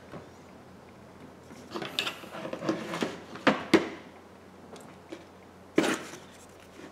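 Handling noise on a repair workbench as objects are picked up and set down: rustling and light clicks about two seconds in, two sharp knocks soon after, and one more knock near the end.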